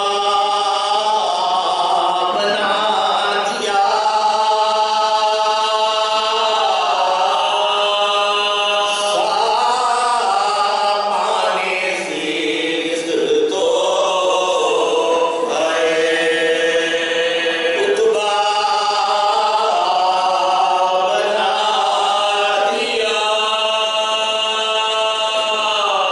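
A small group of men chanting a Shia devotional lament (noha) together, unaccompanied, in long melodic lines that rise and fall.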